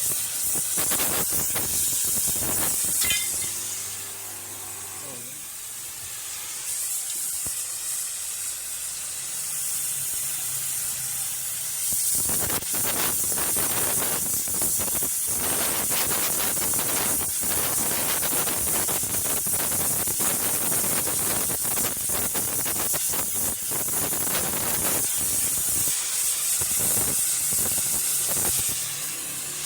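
Gas welding torch hissing steadily, with dense crackling and popping from about a third of the way in as the flame works the metal.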